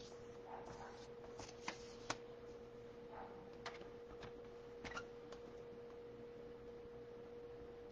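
Faint scattered clicks and taps of paper and a paper trimmer being handled while lining up a fold, over a steady high-pitched hum.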